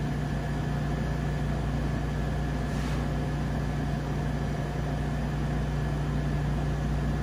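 Steady mechanical hum of kitchen equipment: a low drone with a couple of faint, steady whining tones above it.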